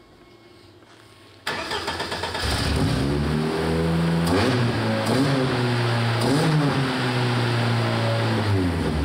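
Mercedes-AMG M133 turbocharged 2.0-litre four-cylinder starting: the starter cranks about a second and a half in and the engine catches within a second. It then runs with two quick throttle blips, pitch rising and falling each time, and the revs drop near the end.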